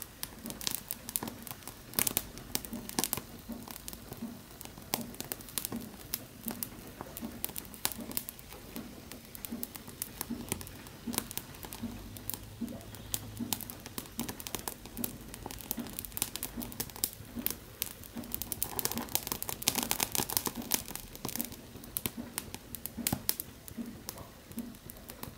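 Wine-bottle cork soaked in isopropyl alcohol, burning as a fire starter and crackling with irregular sharp ticks and pops. A denser burst of crackling comes about three-quarters of the way through.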